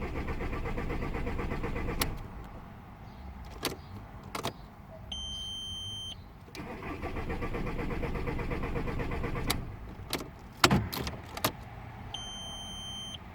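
VW Bora Mk4 engine being cranked by the starter without catching: about two seconds of cranking, then about three more, with sharp clicks and a short electronic beep after each attempt. A crank-but-no-start fault tied to the shutoff valve relay (relay 109).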